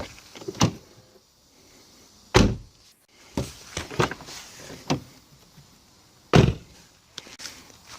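Car door of a 2011 Infiniti M sedan being slammed shut, with three solid thuds: one at the start, one about two and a half seconds in and one near six and a half seconds. Lighter clicks and knocks of the latch and handle come in between.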